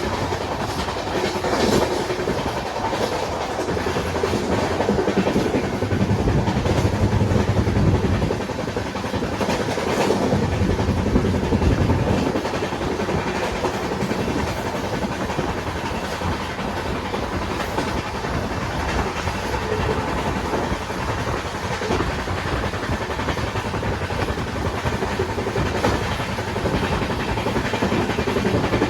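Indian Railways train running on the rails: a steady rumble with the clickety-clack of wheels over the rail joints, the low rumble growing heavier for several seconds in the middle.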